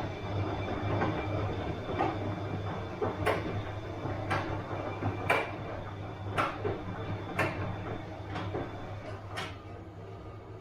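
Bosch washing machine running a wash, its motor humming steadily, with a sharp knock about once a second as the drum turns. The knocks stop near the end.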